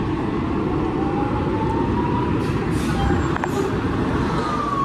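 Fire trucks' diesel engines idling with a steady low rumble. Near the end an emergency-vehicle siren starts a falling wail.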